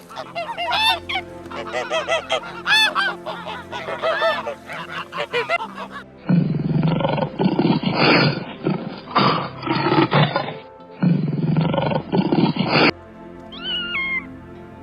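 A duck quacking in a run of short calls, then a tiger roaring and growling in long, rough bouts from about six seconds in, then near the end a cat's single falling meow. Faint background music runs underneath.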